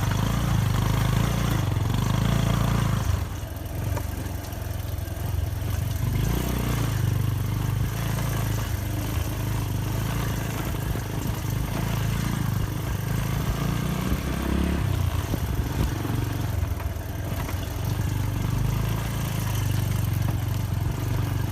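Motorcycle engine running steadily during a ride, a low drone with a steady rush of noise over it; the level drops a little about three seconds in.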